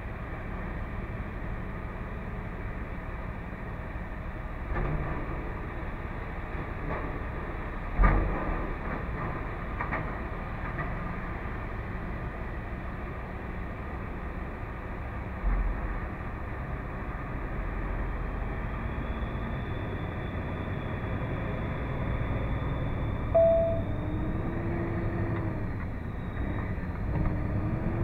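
Semi-truck's diesel engine and road noise heard steadily from inside the cab, with a handful of thumps and knocks, the loudest about eight seconds in.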